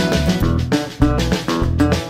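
Instrumental band music: guitar over bass and a drum kit, playing a steady beat.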